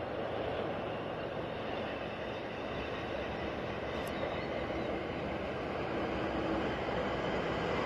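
Distant regional passenger train approaching, a steady rumble that slowly grows louder.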